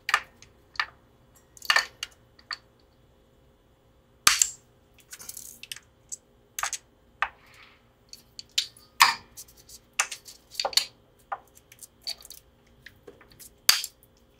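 Wire cutters snipping the excess ends of steel guitar strings at the tuning pegs, with handling clicks against the headstock: a series of sharp, irregular snaps and clicks.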